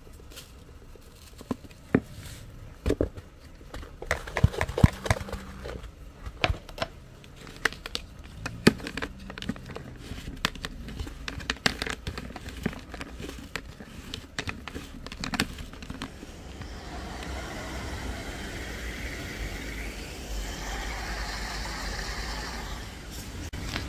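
Clicks, knocks and crinkles of a thin plastic bowl and a plastic bottle being handled while fishing bait dough is mixed in the bowl by hand. About two-thirds of the way in these give way to a steady outdoor background noise.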